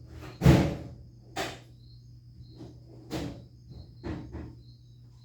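A series of about five sharp clacks and knocks as tools and plastic scooter parts are handled during disassembly; the loudest comes about half a second in. Crickets chirp steadily in the background over a low hum.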